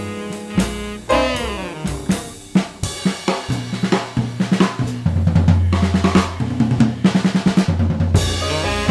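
Jazz drum kit playing a solo break, a quick run of snare strokes and rimshots with cymbals and bass drum. A saxophone line fades out in the first second or two and comes back in near the end.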